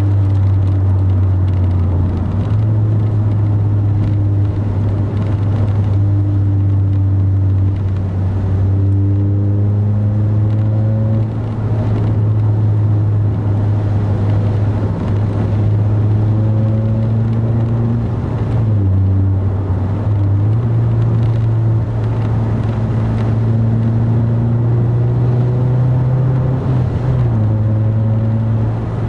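2010 Mazda 3 with a Corksport dual aftermarket exhaust, heard from inside the cabin while cruising: a steady low engine and exhaust drone. Its pitch shifts up and down a few times.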